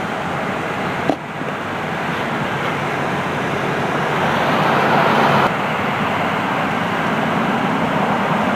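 Steady road traffic noise, with a single sharp knock about a second in.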